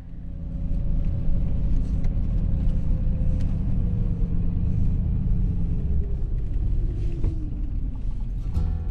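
Steady low rumble of a vehicle's engine and tyres as it creeps slowly across a grass lawn, heard from inside the cab, with a faint engine hum that sinks in pitch as the vehicle slows toward the end.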